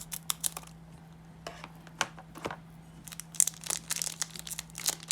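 Wrapper of a trading card pack crinkling and tearing as it is opened by hand, in bursts of sharp crackles with a short lull about a second in.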